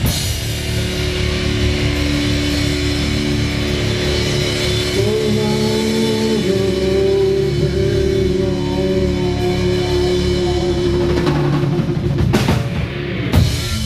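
Rock band playing live: a Mapex drum kit and guitar. Long held notes run through the middle, and heavy drum and cymbal hits come near the end.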